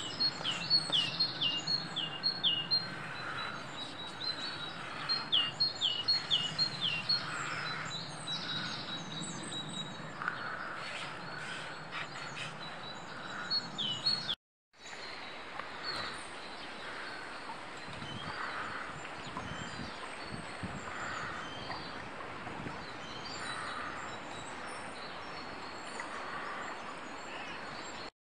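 Small woodland songbirds singing: two runs of quick, repeated, high downward-sweeping notes in the first seven seconds, with further calls over a steady outdoor background.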